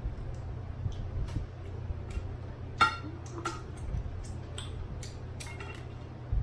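Crab leg shells cracking and clicking as king crab legs are broken open by hand and the meat pulled out: a run of short, sharp clicks, the loudest about three seconds in, over a steady low hum.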